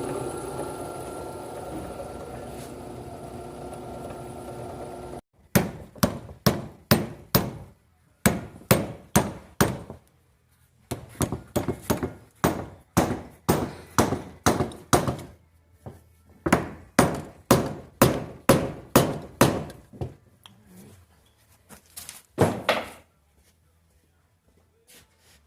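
Drill press running with a steady hum as it bores into a broken hardened bolt, cutting off about five seconds in. Then come rapid hammer blows on metal in three runs of about eight to ten strikes each, two to three a second, with a few last blows near the end.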